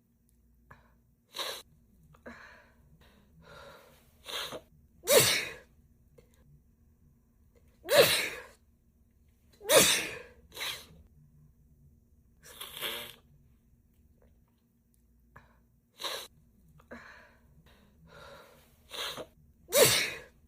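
A woman sneezing over and over in a fit, about ten sneezes a second or few apart, with softer in-breaths between them. The loudest sneezes come about five, eight and ten seconds in and near the end.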